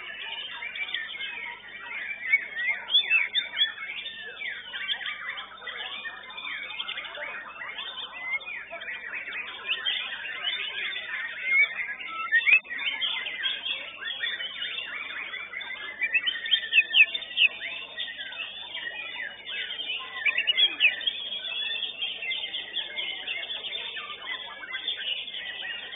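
White-rumped shamas singing, several at once: a dense, continuous run of loud, varied whistles, trills and chirps that slide up and down in pitch.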